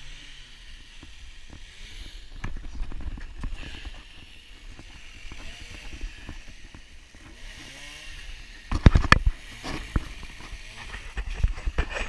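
Rubbing and knocking from the camera being handled, with scattered small clicks over a low rumble and two bursts of loud knocks, one about nine seconds in and one near the end.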